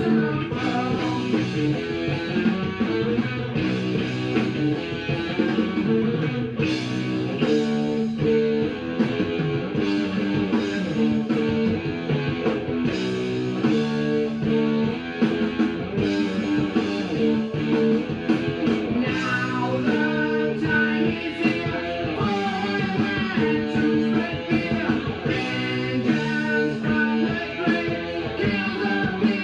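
Background music: a guitar-led rock or blues track playing steadily.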